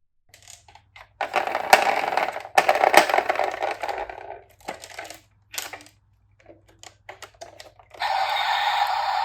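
Toy ladder fire truck being handled, its plastic parts clattering and clicking in a dense rattle for a few seconds, then in scattered clicks. About eight seconds in, a steady hissing noise starts.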